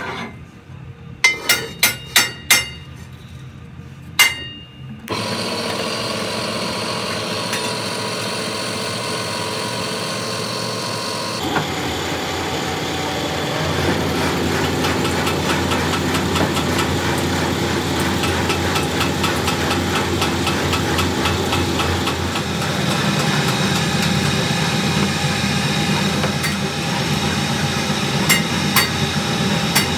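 A few sharp, ringing clanks of steel as a wheel rim is handled into a rim-rolling machine. The machine then starts at about five seconds and runs steadily, and a little before halfway it grows louder with a fast rattle as its rollers turn and press the spinning steel rim into shape.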